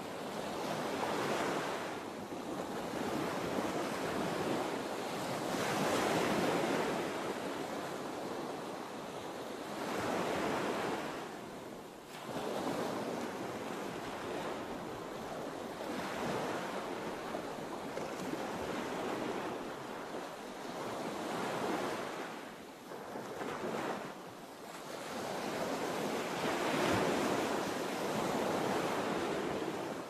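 Sea surf: waves breaking and washing in, a rushing noise that swells and falls back every four to six seconds.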